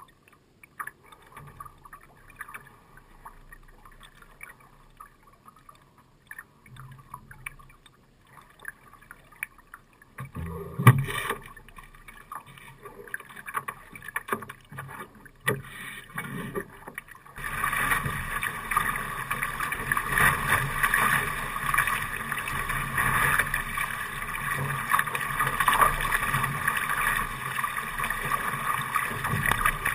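Water lapping and gurgling against the hull of a Laser dinghy, faint at first with small scattered ticks. A little past halfway it jumps suddenly to a loud, steady rush and splash of water at the bow as the boat sails fast.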